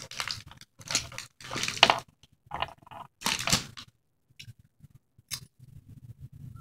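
Popcorn crunching as it is chewed, about five crisp crackling crunches a little under a second apart, then a few faint clicks in the last couple of seconds.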